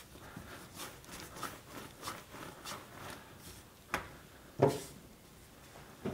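Hands rolling and handling yeast dough on a kitchen worktop: soft, faint rubbing and handling noises, with a sharp tap about four seconds in and a brief louder sound just after.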